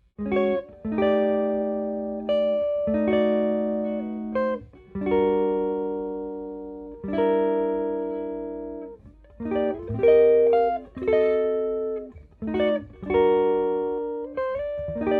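Ibanez Artcore Expressionist AF95BS hollow-body archtop electric guitar played clean in a jazz chord-melody style: chords struck one after another and left to ring out, each fading over a second or two.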